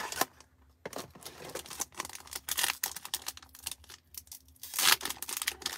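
Foil trading-card pack being torn open and crinkled between the fingers: a run of short crackles and rustles, with a louder burst of tearing about five seconds in.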